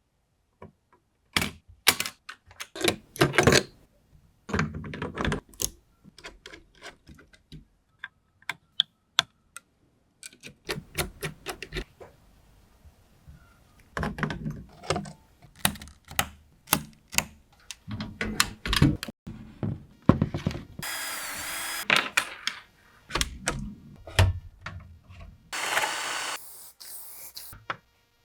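Computer parts being handled and fitted together: a string of sharp clicks, taps and thunks of plastic and metal pieces, some in quick runs. Two short stretches of steady hiss break in near the end.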